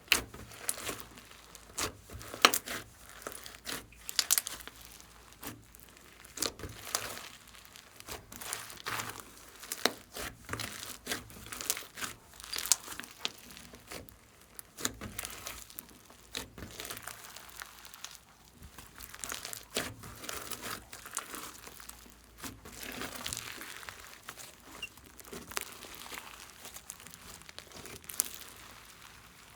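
Slime being worked by hand, giving a dense, irregular run of sticky crackling and popping clicks.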